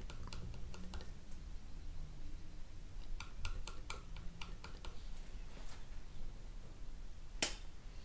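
Metal palette knife clicking and tapping lightly on the palette as it mixes oil paint, in small clusters of quick clicks, with one sharper click near the end.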